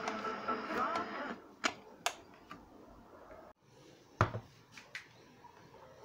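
A small transistor radio's speaker playing a broadcast for about a second and a half, then a few sharp clicks and knocks from hands handling a portable radio's case.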